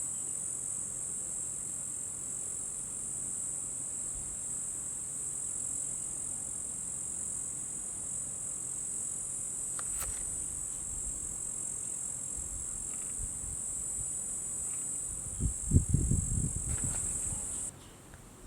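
Steady, high-pitched drone of an insect chorus that cuts off abruptly near the end. Shortly before the cut-off comes a brief cluster of loud, low bumps.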